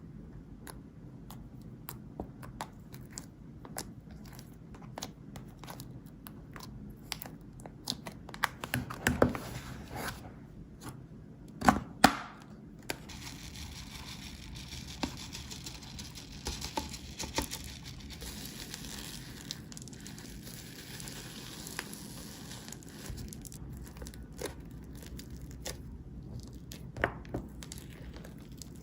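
Slime being worked by hand: sticky crackling with many small clicks and pops, and two louder bursts about nine and twelve seconds in.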